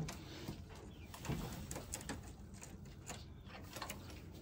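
Faint, low clucking of chickens, with a few scattered soft calls.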